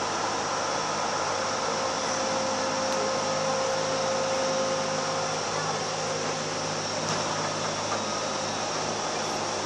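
Steady running noise inside a Sound Transit Link light rail car moving through a tunnel: an even rumble and hiss, with a faint held tone from about one to five seconds in.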